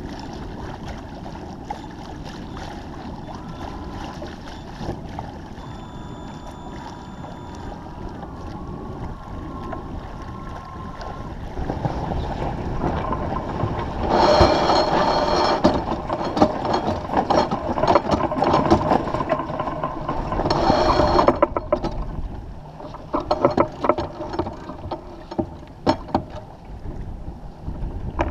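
Sailboat under way, water rushing along the hull, with a deck winch ratcheting loudly in a quick run of clicks as a sheet is trimmed about halfway through, again a few seconds later, and in scattered clicks near the end.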